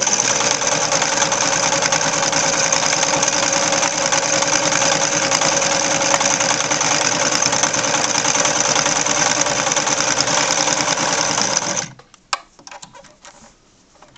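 Vintage Singer Fashion Mate 360 sewing machine running steadily, stitching on a very short stitch length, then stopping abruptly about twelve seconds in; a few faint clicks follow.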